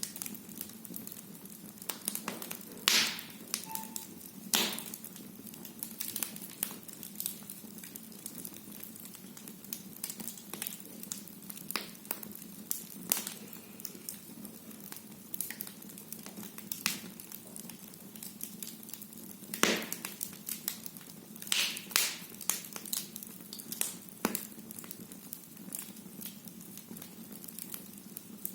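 Firewood burning in a fireplace, crackling steadily with irregular sharp pops; the loudest snaps come about 3, 4.5, 20 and 22 seconds in.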